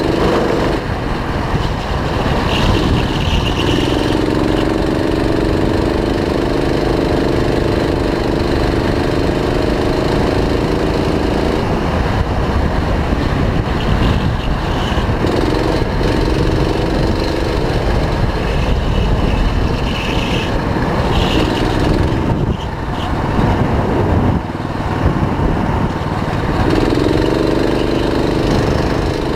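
Go-kart engine heard onboard at speed, its note climbing slowly along the straights and falling away several times as the driver lifts for corners, over a steady rumble of wind and tyre noise.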